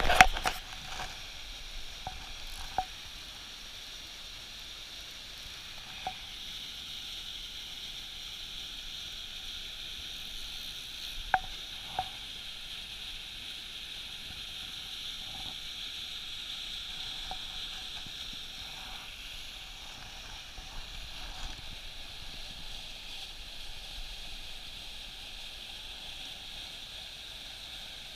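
Mountain creek water rushing over rocks in a small cascade: a steady hiss, with a few scattered sharp clicks, two close together about eleven seconds in.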